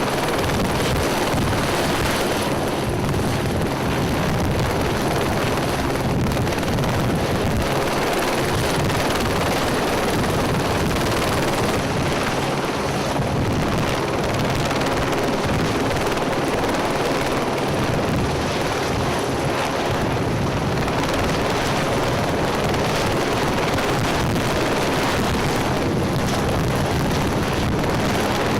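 Helicopter rotor and engine running steadily and loud, a constant rushing noise with a low steady hum.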